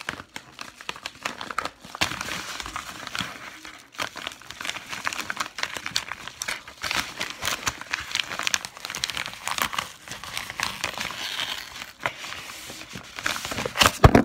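Packaging crinkling and rustling as it is handled and pulled at by hand to get it open, with a sharp knock near the end.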